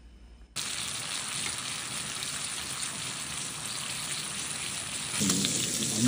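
Meat sizzling as it fries, a steady hiss that starts abruptly about half a second in and grows louder near the end.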